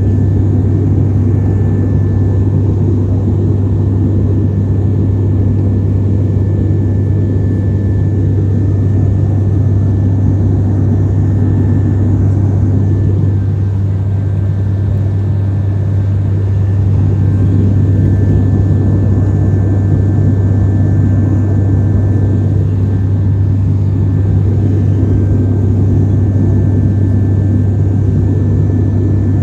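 Steady drone of an airliner in flight, heard from inside the passenger cabin: a loud, constant low hum with a faint thin whistle above it.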